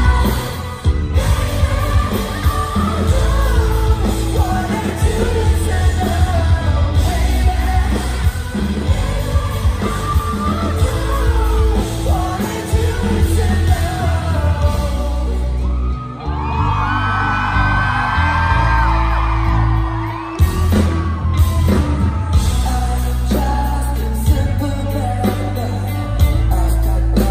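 Live pop-rock band playing loud, with lead vocals over drums, bass guitar, electric guitar and keyboards, and fans yelling. About sixteen seconds in the heavy bass drops out for a few seconds under held high sung notes, then the full band comes back in.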